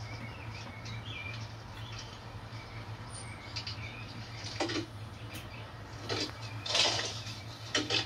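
Small songbirds chirping from a backyard bird-feeder video played through TV speakers, over a steady low hum. In the second half come a few short scratchy rustles, the loudest about two-thirds of the way through.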